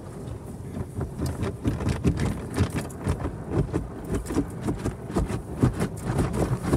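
Rotating car wash brushes with soft Shine Mitt strips, on a Belanger SpinLite, slapping rapidly and irregularly against the windshield and body, heard from inside the car. The slapping starts about a second in and grows louder, over a steady low rumble.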